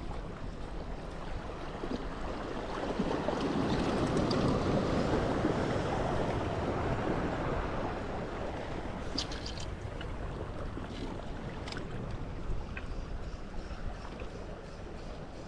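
Sea waves washing against shore rocks, swelling to a louder surge for a few seconds and easing off again, with wind on the microphone. A few light clicks come later on.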